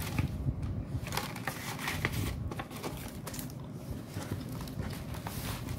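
Paper rustling and light handling noises as banknotes and paper envelopes are moved about on a table.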